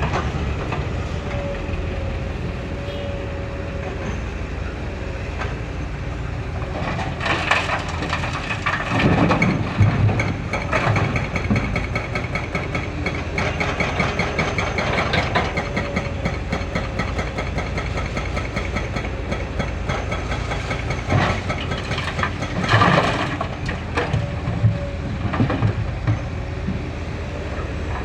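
Excavator diesel engine running steadily under work. It grows louder, with metallic knocks and clanks, about a third of the way in and again near the end.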